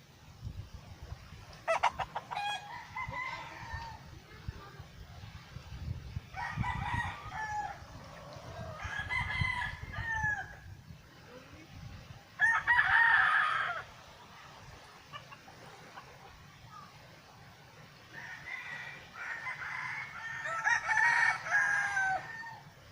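Roosters crowing, about five crows one after another a few seconds apart, the last one longest.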